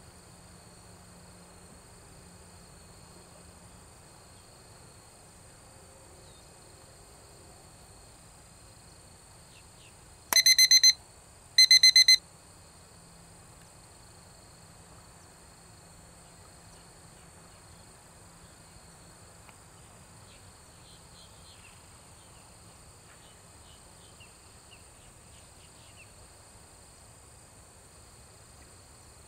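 Two short, loud electronic beeps about a second and a half apart, the kind of timer cue that marks a sampling point for recording behaviour. A steady insect drone runs underneath.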